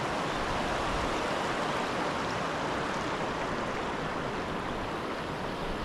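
River water flowing, a steady even wash of noise with no break.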